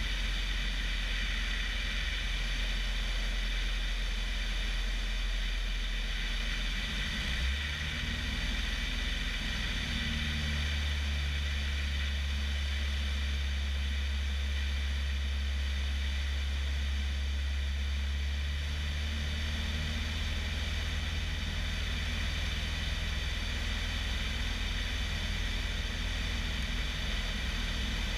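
Bellanca Decathlon's 150 hp Lycoming engine and constant-speed propeller running steadily in flight, with a steady rush of wind. About eight seconds in, the low drone rises in pitch and then holds.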